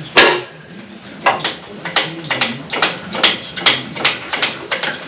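Lifting chain and hook clinking and clanking against metal in a string of sharp, irregular clicks, with one loud clank just after the start.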